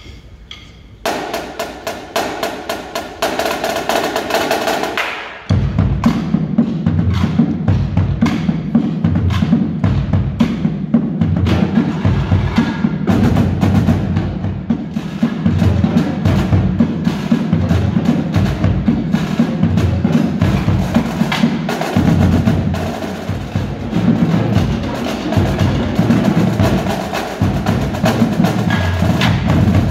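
A drumline playing a fast cadence: the drums start a rapid pattern about a second in, and low drums join about five seconds in, keeping up a steady driving beat.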